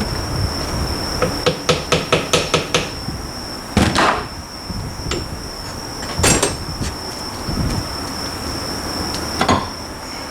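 Hammer blows on the parts of a Suzuki Carry rear differential being dismantled: a quick run of about eight light taps, then three heavier single blows a few seconds apart, each with a short ring.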